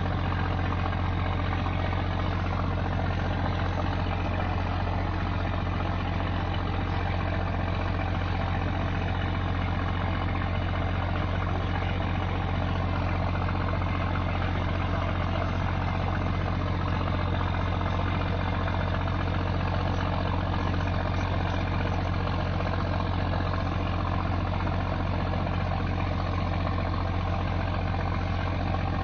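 Fishing boat's engine running steadily, a constant low drone heard from on board.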